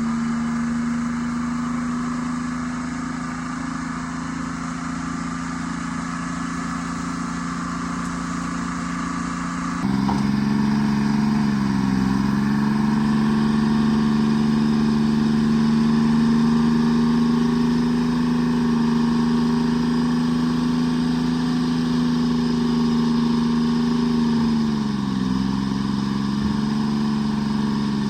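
Forestry forwarder's diesel engine running steadily. It changes abruptly about ten seconds in, and the engine speed dips briefly twice after that.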